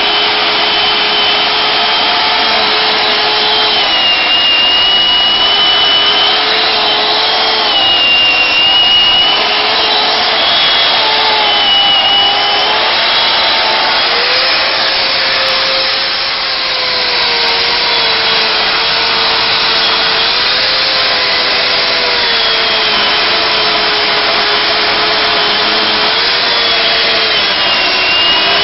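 Chainsaw cutting through wood, running steadily under load to rip out long strands of sawdust. Its whine wavers up and down in pitch as the chain bites.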